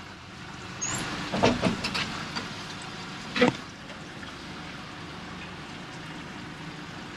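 Boat and trailer rolling backwards down a launch ramp: a steady low rumble with a few clunks and rattles from the boat and trailer about a second in and again at about three and a half seconds.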